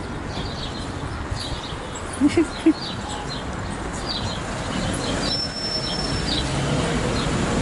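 Wind and rolling noise on the microphone from a moving bicycle, with short high chirps all through and a brief low pitched sound a little over two seconds in.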